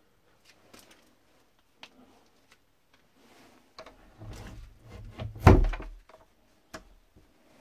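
Scattered light clicks and knocks, then a low rumble with one loud, sharp thump about five and a half seconds in.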